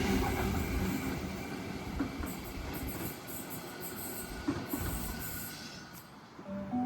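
Electric suburban passenger train slowing into the platform, its rumble fading away, with faint high squeals. Near the end a station announcement chime begins.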